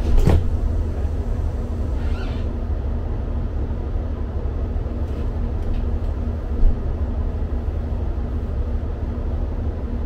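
Diesel multiple-unit train idling at a platform, heard from inside the carriage as a steady low rumble with a constant hum. There are two knocks right at the start and a single thump about six and a half seconds in.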